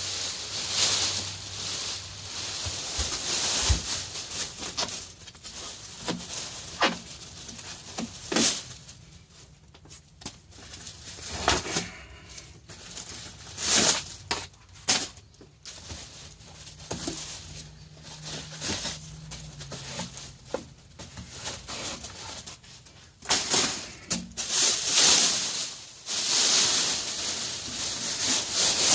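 Handling of bar stool parts, the metal swivel plate and the seat: spells of rustling with a dozen or so short knocks and bumps scattered through.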